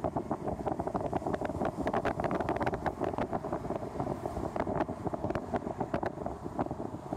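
Car driving on a dirt road, heard from inside the cabin: a steady rumble of tyres on gravel, with many quick clicks and crackles throughout.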